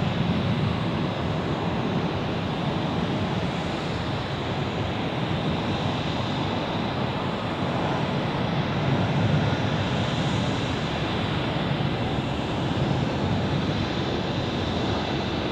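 Airbus A350-900's Rolls-Royce Trent XWB turbofan engines running at taxi power, a steady, even jet noise as the airliner rolls along the taxiway.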